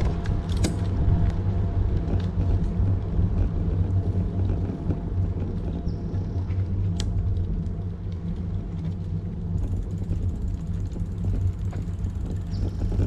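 Steady low rumble of wind on the microphone and tyres rolling on pavement from a moving bicycle, with a few sharp clicks and rattles from the bike, one near the start and one about seven seconds in.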